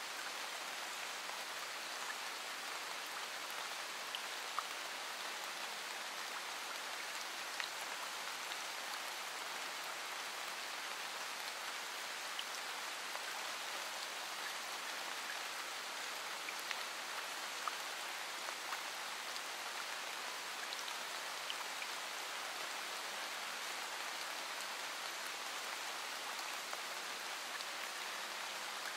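Steady rain: an even hiss of falling rain, with scattered small ticks of single drops.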